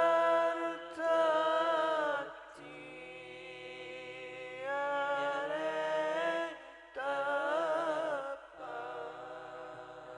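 Group of men singing Islamic sholawat a cappella in the bhenning style: long held, ornamented phrases with short breaths between them, and no instruments.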